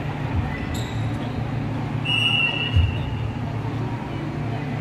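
Basketball game ambience in a gym: a steady murmur from the hall, with a ball bouncing on the court a couple of times and a short, high, shrill tone lasting under a second about two seconds in.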